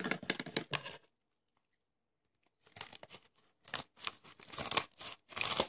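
A mailed package being torn open: its wrapping tearing and crinkling in quick noisy strokes, a pause of about a second and a half, then more, denser tearing and crinkling.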